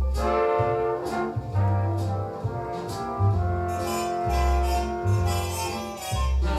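Instrumental jazz passage, with brass (trombone-like) holding long notes over a stepping upright-bass line.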